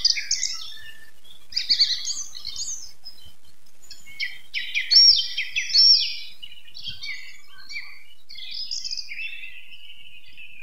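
Morning birdsong: several songbirds singing and chirping in overlapping, quickly gliding phrases. The loudest phrases come about halfway through.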